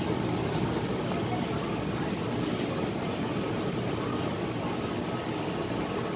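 Steady background din of a busy market, with a few faint clicks.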